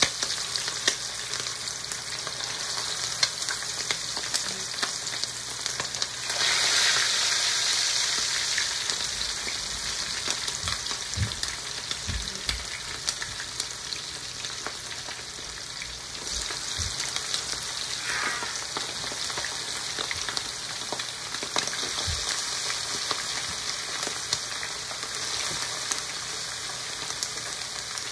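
Marinated chicken drumsticks frying in hot oil in a pan, a steady crackling sizzle that swells louder about six seconds in as more pieces go into the oil. A few soft low thumps come in the middle.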